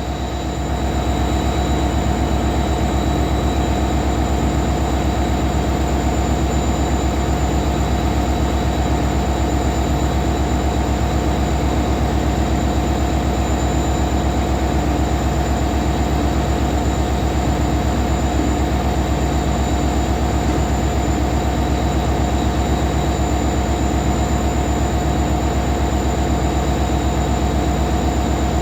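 Indian Railways EMD two-stroke diesel locomotive idling with its characteristic steady hum: a dense low throb with a steady whine on top.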